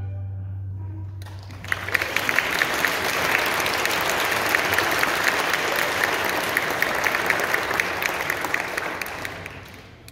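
Audience applauding after an orchestra piece. The orchestra's last low note fades in the first two seconds as the clapping starts about a second in. The clapping holds steady and dies away near the end.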